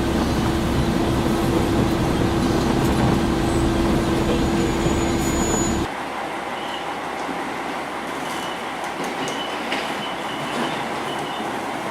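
KiHa 47 diesel railcar running on the track, with a steady loud rumble and a held hum. About halfway through the sound drops abruptly to a quieter run, where short high-pitched wheel squeals come several times.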